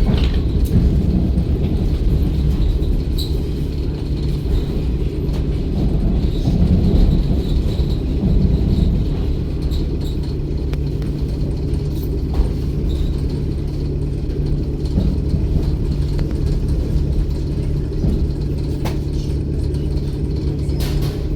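Inside the carriage of an electric commuter train: a steady low rumble with occasional clicks and rattles. A steady low hum comes in about halfway through.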